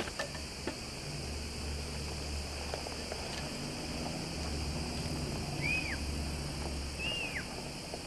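Steady, high-pitched insect chorus over a low rumble, with two short whistles that rise then fall, about two-thirds of the way through and again near the end.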